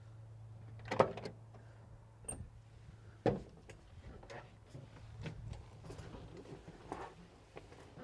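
Van's driver door latch clicking open about a second in, then a thump and scattered light clicks and rustles as someone climbs into the driver's seat.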